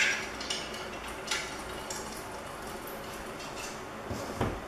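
Scattered small metal clicks and clinks of screws and a hex key against the metal parts of a printer stand as screws are fitted into a leg base, with a dull thump near the end.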